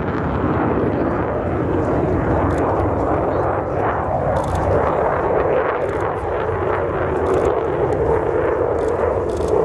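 Loud, steady jet noise from a Mitsubishi F-15J Eagle's twin turbofan engines as the fighter flies its demonstration maneuvers, with a droning mid-pitched tone that becomes steadier near the end.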